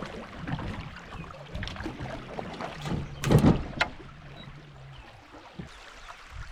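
Fishing kayak on a river: light water noise around the hull with a steady low hum that fades out about five seconds in, and a few sharp knocks, the loudest about three seconds in.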